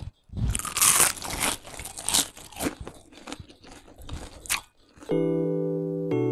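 Crisp fried mashed-potato spirals being bitten and chewed: a run of irregular loud crunches. Background music with held notes starts near the end.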